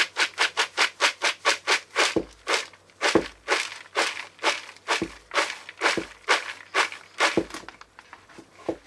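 Popped popcorn, freshly drizzled with olive oil and seasoning, rattling and swishing as it is shaken and tossed in a bowl. The strokes come about four a second, slow to about two a second after a couple of seconds, and stop near the end.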